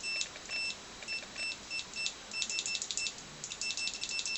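Multimeter continuity beeper sounding in short, repeated high beeps as the repaired ALPS key switch is pressed over and over, each beep marking the switch closing the circuit: the switch is working. Faint clicks of the key come with the beeps, which come in quicker runs about halfway through.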